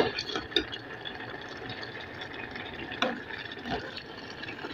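Rice simmering in a pot of water, with a few short clinks and scrapes of a spoon stirring it against the pot.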